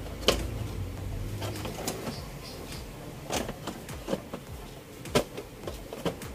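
Hands handling and pressing down the plastic back cover of an LED TV: scattered sharp plastic clicks and knocks, the loudest just after the start and about five seconds in.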